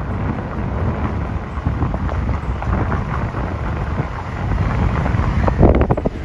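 Wind buffeting the microphone over a steady low rumble, growing louder toward the end.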